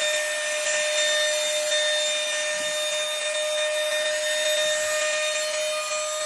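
Electric router cutting a slot into a solid-wood electric guitar body, running at a steady high pitch over a hiss of cutting.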